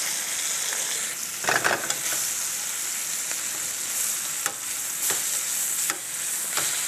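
Steaks and chopped mushrooms sizzling steadily in hot fat in a skillet. Tongs click and scrape against the pan as the steaks are moved, in a short cluster about a second and a half in and then single clicks every second or so near the end.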